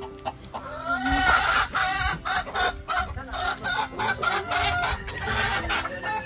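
Chickens clucking and squawking loudly, starting about a second in.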